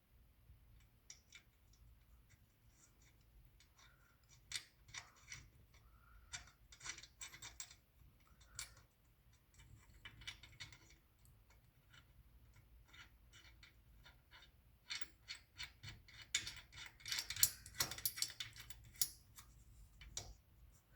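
Socket ratchet clicking in short irregular runs, with light metal clinks, as the nut holding the new idler pulley is tightened. The clicking is busiest and loudest near the end.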